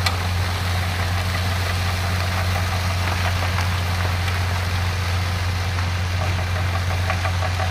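Vehicle engine running steadily with a low, even hum; near the end a fast ticking clatter joins in.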